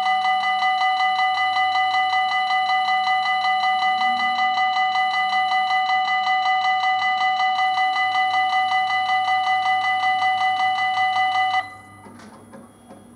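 Level crossing warning bell ringing in rapid, even strokes, about four or five a second, with a bright metallic tone, while the barriers lower. It stops suddenly near the end, once the barriers are down.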